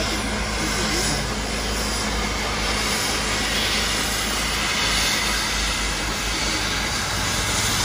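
Nilgiri Mountain Railway steam locomotive pushing its coaches along the hillside line: a steady running noise with a low rumble, with no separate exhaust beats standing out.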